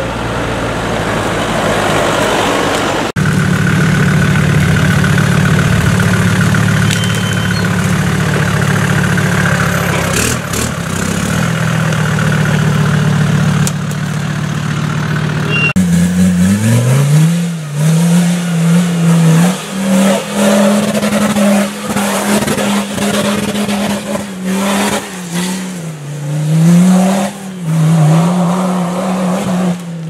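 Land Rover 4x4 engines running off-road: a steady drone from vehicles moving along a dirt track, then from about halfway one engine revving up and down again and again as a modified Land Rover works up a steep slope.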